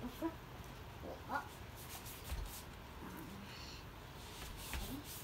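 A boxer dog whining in a few short, soft whimpers that rise in pitch, four times in a few seconds.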